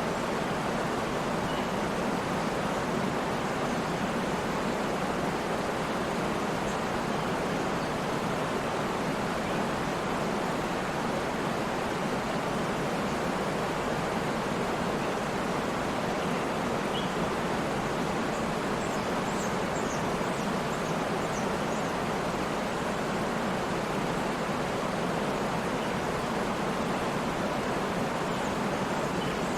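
Waterfall: steady, unbroken rushing of falling water.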